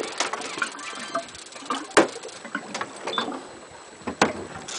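Conventional fishing reel cranked under load while reeling in a hooked bluefish, giving a run of irregular clicks, with two sharper knocks about two seconds in and near the end.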